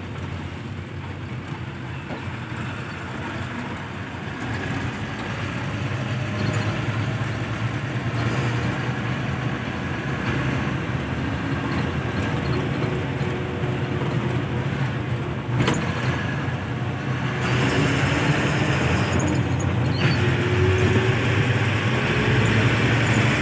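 Diesel truck engine running and road noise heard from inside the cab while driving, growing gradually louder. A brief knock about fifteen seconds in.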